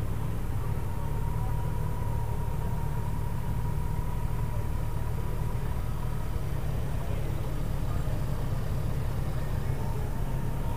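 Motorcycle engine running with a steady low drone that holds even throughout, with a faint thin steady whine above it.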